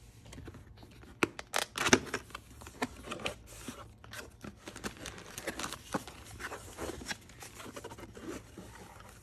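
Cardboard lens box being opened by hand: irregular rustling, scraping and tapping of the packaging and the plastic wrap inside, with the loudest knock about two seconds in.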